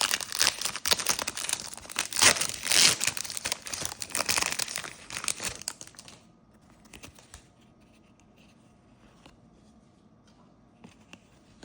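A basketball trading-card pack's wrapper being torn open and crinkled for about six seconds, then only a few faint clicks.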